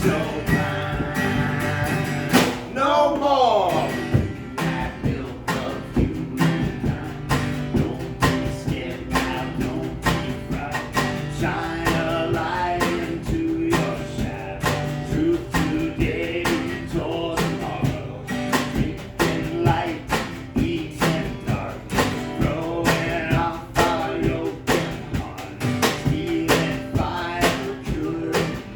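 Live song on acoustic guitar, strummed in a steady rhythm, with a voice singing over it and a falling pitch glide about three seconds in.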